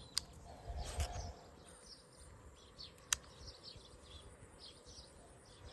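Outdoor ambience with short, high chirps repeating throughout, a brief low rumble about a second in, and two sharp clicks, one near the start and one about three seconds in.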